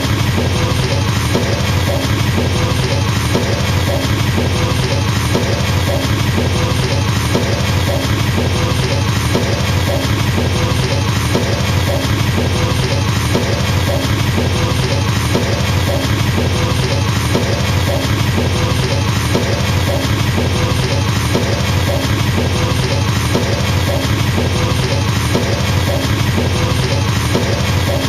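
Drum kit played with double bass pedals: an unbroken, very fast, even stream of kick drum strokes like a machine gun, steady in loudness throughout.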